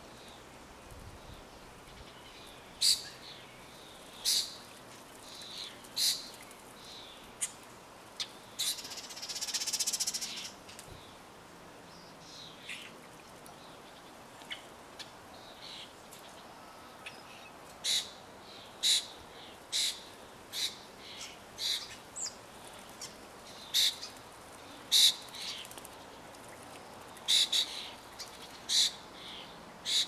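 Blackbirds and cowbirds giving short, sharp chip calls at irregular intervals, sparser for a stretch midway and coming more often near the end. About nine seconds in, a brief rush of splashing as a bird bathes and flutters in the water.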